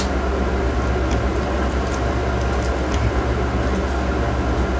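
Steady low machine hum and rushing noise throughout, with a few faint wet mouth clicks and lip smacks from chewing food.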